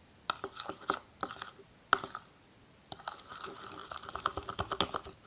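Glitter-glue slime being stirred and worked in a small pot, making irregular wet clicks and crackles: a few scattered ones in the first two seconds, then a dense run from about three seconds in.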